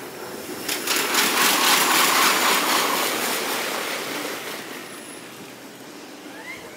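Kintetsu electric train passing out of view, sped up five times: a swell of rushing rail noise with rapid wheel clatter that rises about a second in and fades away over the next few seconds.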